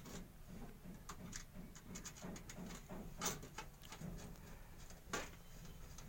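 Faint clicks and ticks of a screwdriver driving the screws that hold a motherboard to a computer case's standoffs, with two sharper metallic clicks about three and five seconds in.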